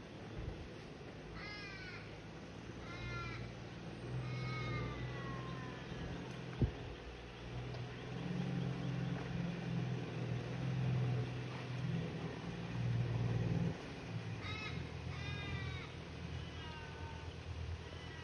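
Toyota LandCruiser 80 series engine labouring slowly through deep ruts, its low rumble swelling through the middle and easing off suddenly about fourteen seconds in, with one sharp knock about six and a half seconds in. Over it come two runs of cawing bird calls, each call falling in pitch.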